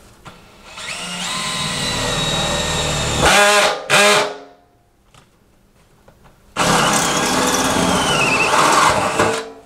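Cordless drill driving a 7/8-inch Milwaukee Hole Dozer bi-metal hole saw through the thin sheet-metal lid of a dust collector drum. It cuts in two runs with a pause of about two seconds between them, and the first run ends with two short louder bursts.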